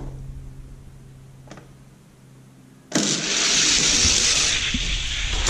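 Hot Wheels die-cast cars rolling fast down an orange plastic drag-race track: a loud, steady rushing rattle that starts suddenly about three seconds in, after a near-quiet stretch with one small click.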